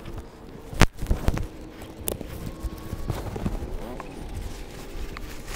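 Footsteps and gear handling on a boat's front deck: scattered knocks and thumps, the sharpest a click about a second in with a few more just after it, over a faint steady hum.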